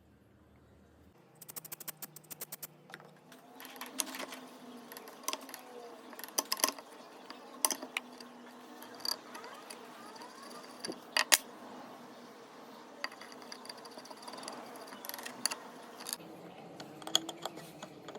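Sharp metallic clicks and clinks of hand tools, a socket and adapter being handled and turned. A quick run of clicks about a second in, then scattered single clinks.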